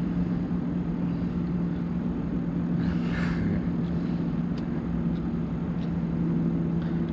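A steady low motor hum made of a few even tones, with a brief faint rustle about three seconds in.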